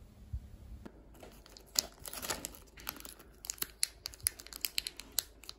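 Plastic chocolate-snack wrappers crinkling and crackling in the hands as a chocolate wafer is unwrapped, a run of irregular sharp crackles starting about a second in.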